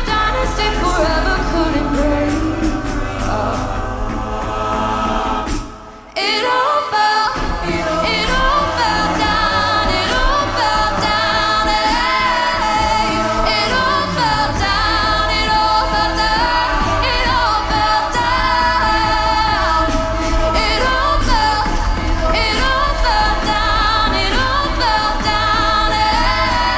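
A cappella group performing a pop song: a female lead voice over backing vocal harmonies, a sung bass line and beatboxed drums. The sound drops away briefly about six seconds in, then the whole group comes back in together.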